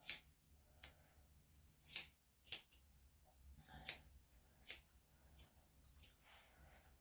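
Grooming scissors snipping the hair of a dog's foot: about nine short, sharp snips, irregularly spaced.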